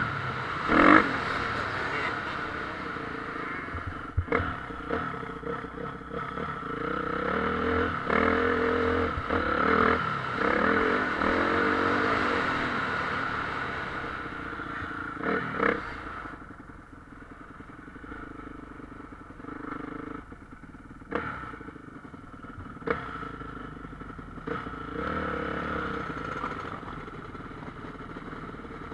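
Motocross bikes running on the track, their engines revving up and falling off as they ride, with scattered sharp knocks. Louder for the first half, then fainter after about sixteen seconds, as though the bikes have moved farther off.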